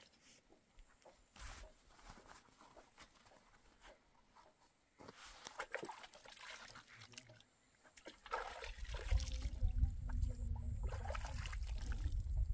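Water being poured and sloshing, with scattered trickles and splashes. A low rumble comes in about eight seconds in and is the loudest part.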